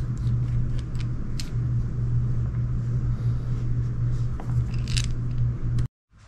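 A steady low hum with scattered small clicks and taps from small parts being handled; it cuts off abruptly near the end.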